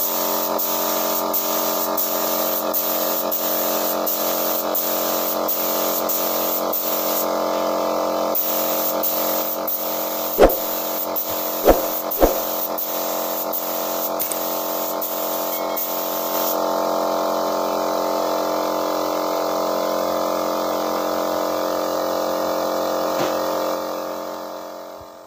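Compressed-air spray gun hissing as it sprays duco lacquer paint, over the steady hum of the air compressor feeding it. The spray hiss stops about two-thirds of the way through while the hum carries on. Three sharp knocks come near the middle.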